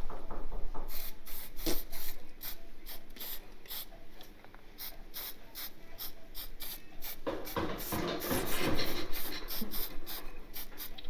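Hand-tool work: a steady series of short clicks, about three a second, like a ratchet wrench turning, with a louder rough scraping stretch about seven to nine seconds in.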